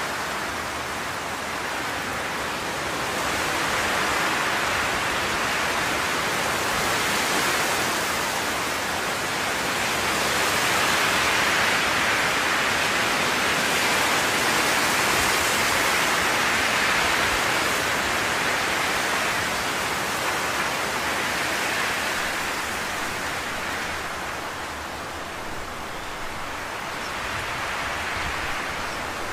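A steady rushing hiss with no distinct strokes or tones. It swells slowly to its loudest in the middle and eases off a few seconds before the end.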